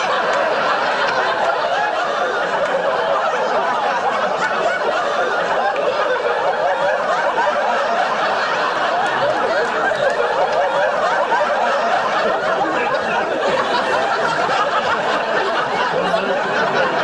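Sitcom studio audience laughing, one long unbroken wave of many people's laughter.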